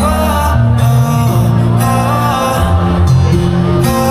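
Amplified live pop music from a concert stage: a singing voice over held bass notes and guitar, running without a break.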